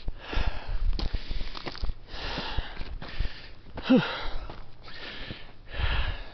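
A hiker breathing hard while climbing a steep dirt-and-gravel trail, a long breath about every one and a half to two seconds, with the thud of his footsteps in between. About four seconds in, a brief sound in his throat falls in pitch and is the loudest moment.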